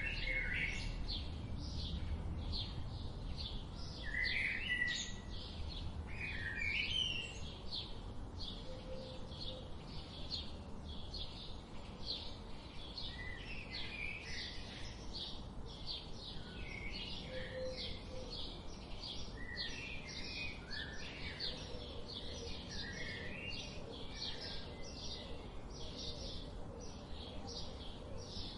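Forest birdsong: a steady series of short high chirps, about two or three a second, with other birds' calls at a lower pitch breaking in now and then, over a soft background hiss.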